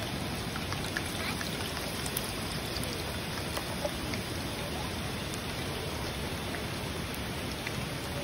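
Hot oil sizzling steadily as battered chicken pieces deep-fry in a pot, with scattered small pops and crackles.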